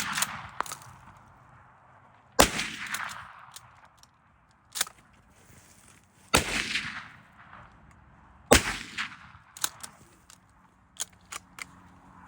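Three loud deer-hunting gunshots a few seconds apart, each ringing out with a rolling echo for about a second, with a fainter sharp crack between the first two.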